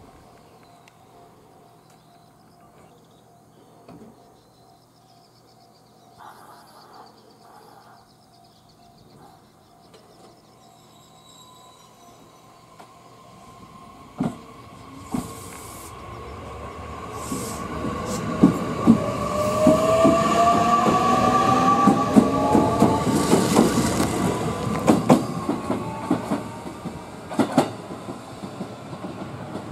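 JR West 227 series electric train standing with a low steady hum, then pulling away about fifteen seconds in. The whine of its traction motors rises in pitch as it accelerates, and its wheels clack over the rail joints. It is loudest as the cars go by, then begins to fade.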